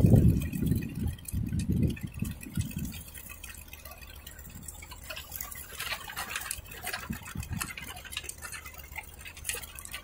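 Tractor-driven rotary tiller working garden soil: a faint steady low engine drone under irregular crackling and ticking. A loud low rumbling dominates the first few seconds, then dies away.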